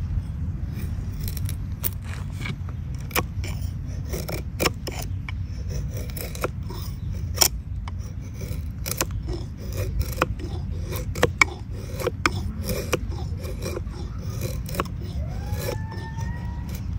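Fixed-blade knife shaving curls down a stick of resinous pine fatwood for fire tinder: a series of short, sharp scraping strokes at irregular intervals.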